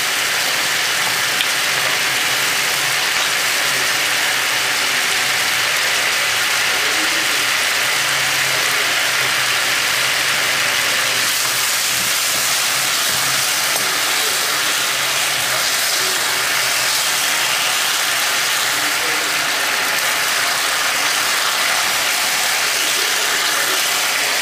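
Vegetable sauce sizzling and bubbling steadily in a non-stick frying pan over a high gas flame, stirred with a ladle.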